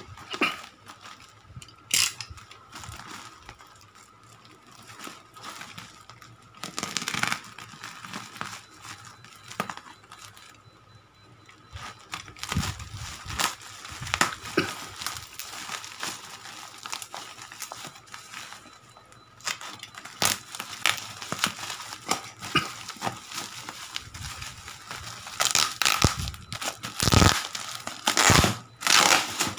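Black plastic mailer and bubble-wrap packaging being slit with a box cutter and pulled apart by hand, crinkling and crackling in irregular bursts that grow louder and busier over the last several seconds.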